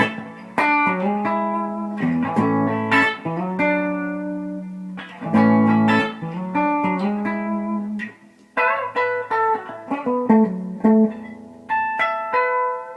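Electric guitar (Gibson ES-359) played clean through a compressor pedal into a small amp with a 10-inch speaker: a riff of picked chords and single notes, with a short gap about eight seconds in and the last notes left to ring out.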